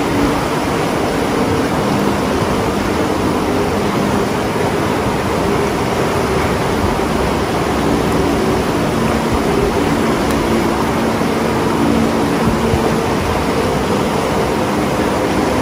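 Fast-flowing river rushing over rapids: a loud, steady wash of water noise. Soft sustained music notes sit faintly underneath.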